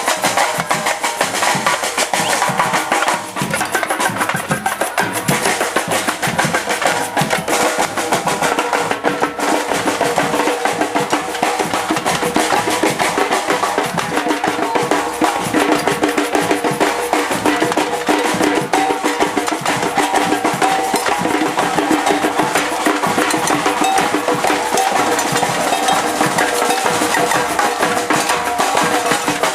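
Percussion group drumming together in a fast, dense, unbroken rhythm.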